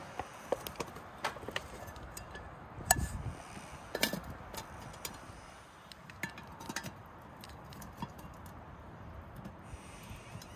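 Scattered light knocks and clinks of wooden sticks and metal camp gear being handled while a handmade stick tripod and pot hanger are set up, with two louder knocks about 3 and 4 seconds in.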